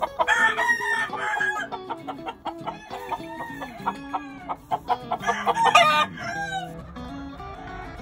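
Rooster crowing twice, once just after the start and again about five seconds in, over quieter background music.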